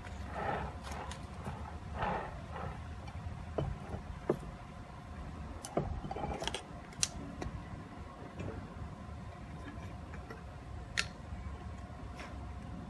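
Light clicks and knocks of a paint spray gun being handled and set down on a work board, with a few short rustles, over a faint steady hum.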